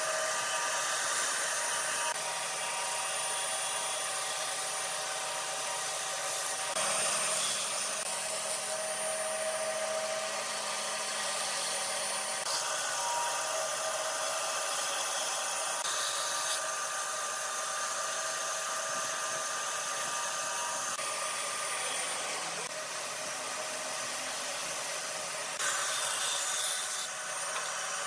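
Bandsaw running and cutting small pieces of light-coloured wood, a steady motor and blade noise. The sound changes abruptly several times as the cutting goes on.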